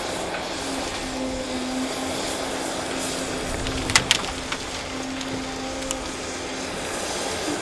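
Cat 330 excavator's diesel engine running steadily under load with a low, even hum. About four seconds in, a quick cluster of sharp cracks of snapping wood.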